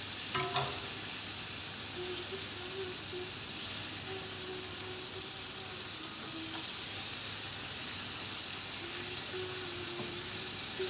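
Food frying in a pan with a steady sizzle, with a brief knock about half a second in.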